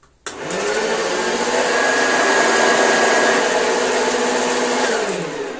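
Vintage Hoover Junior upright vacuum cleaner switched on with a click a moment in, its motor and agitator brush roll spinning up to a steady high-pitched whine. Near the end it is switched off and winds down, the pitch falling. It sounds very dry and very powerful.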